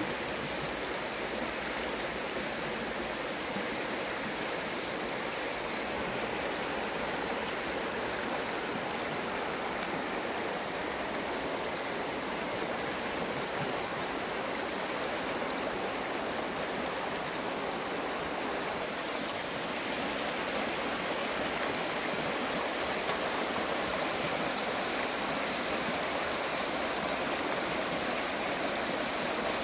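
Shallow river running over stones: a steady rush of water.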